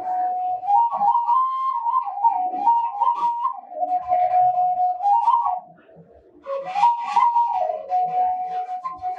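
Ethiopian washint, an end-blown bamboo flute, playing a breathy solo melody of held notes broken by quick ornamented turns. It breaks off briefly about six seconds in before the next phrase.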